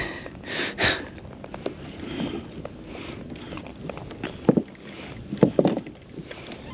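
Small waves lapping and slapping against the hull of a plastic fishing kayak, with a few short knocks about four and a half and five and a half seconds in.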